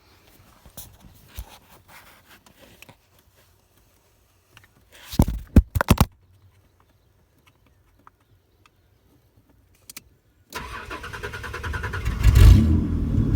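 Holden VP Commodore's 3.8-litre V6 being started with a screwdriver in place of the ignition key. Faint clicks and rattles come first, then a brief burst of cranking about five seconds in. Near the end it cranks again, catches and keeps running.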